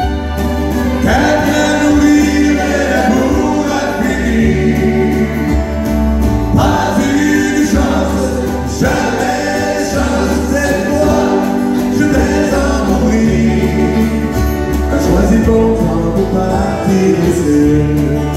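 Live acoustic country music: acoustic guitars and a fiddle playing while two men sing together.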